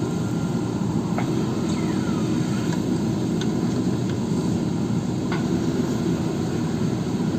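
JCB backhoe loader's diesel engine running steadily under work, with a few short metallic clanks and one brief falling squeal over the rumble.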